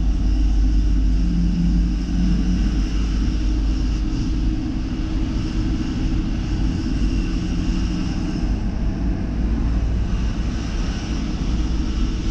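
Engine and road noise heard from inside the cab of a moving vehicle: a steady low rumble.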